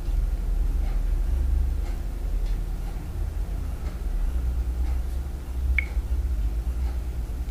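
Steady low rumble of background noise, with faint light taps of a fingertip on a phone touchscreen and one short high beep near the end.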